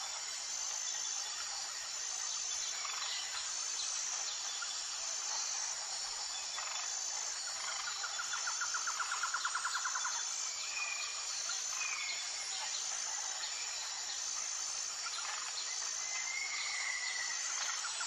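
Insects buzzing steadily on a high pitch, with a call that pulses about once a second, and birds calling now and then: a few short gliding notes and a rapid trill of about two seconds near the middle.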